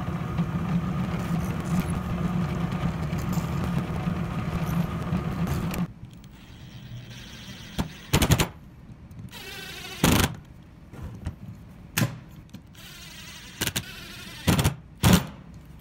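Drill press running steadily as it drills a pilot hole in a plywood base, stopping about six seconds in. Then a cordless impact driver in several short bursts, driving the screws that mount a magnet to the base.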